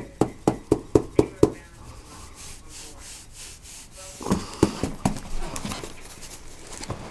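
Foam pool noodle slapping down on a cat and carpet in a quick steady rhythm, about four strikes a second, stopping after about a second and a half. A few seconds later come several irregular thumps and rustling as the noodle and the cat tussle.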